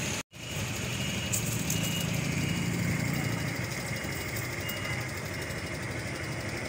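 Motorcycle engine idling steadily, with a faint high beep repeating about twice a second in the middle. The sound drops out completely for a moment a quarter second in.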